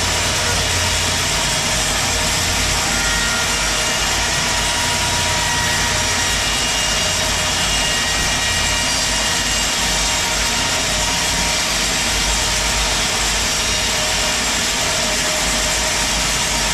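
Sawmill running steadily, its saw cutting through a large teak log: a loud, constant machine noise with a low hum underneath.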